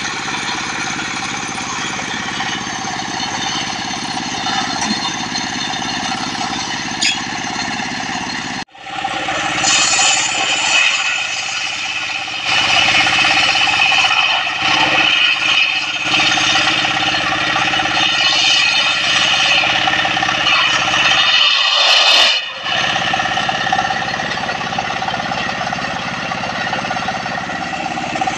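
Engine-driven homemade circular sawmill running, its blade ripping durian logs into boards. The sawing gets louder and harsher after about nine seconds. The sound cuts out briefly twice.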